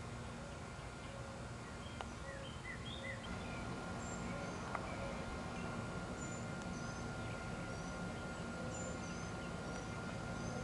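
Steady outdoor background noise with small birds chirping faintly: a cluster of short chirps about two to three seconds in, then scattered thin, high chirps through the rest.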